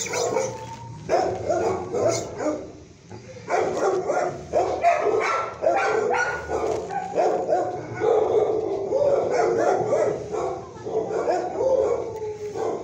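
Several shelter dogs barking and howling at once, many calls overlapping into a steady din that fills in from about three and a half seconds in.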